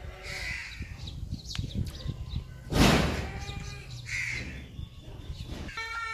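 Crows cawing a few times, harsh calls coming and going, with one loud, short thump about three seconds in.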